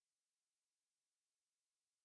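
Near silence: a dead, empty soundtrack.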